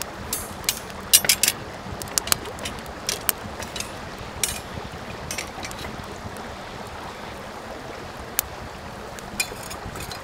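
Small wood campfire crackling: irregular sharp pops and snaps over a steady hiss of burning wood, with a cluster of loud pops about a second in.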